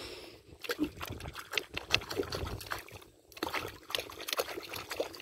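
Small irregular splashes and trickles of shallow lake water as the surface is stirred to draw a small alligator over, with a brief pause about three seconds in.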